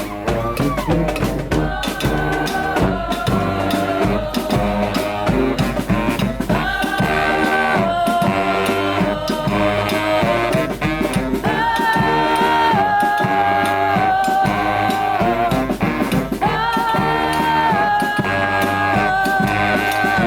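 Street brass band playing: horns holding notes and moving together from chord to chord over a steady drum beat.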